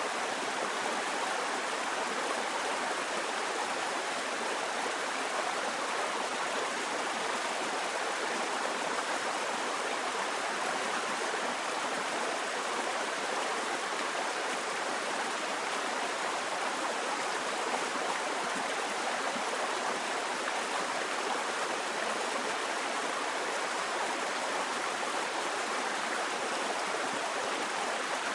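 Steady rushing of a fast-flowing river, an even wash of water noise that holds unchanged throughout.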